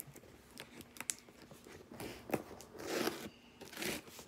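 A mailed package being torn open by hand: crinkling and ripping of the packaging, with a few sharp clicks early on and several short tearing rips in the second half.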